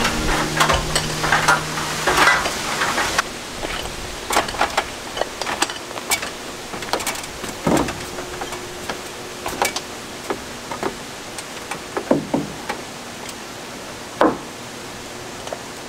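Carpentry on wooden roof rafters: scattered knocks and taps of wood and tools, with a few louder single knocks in the second half.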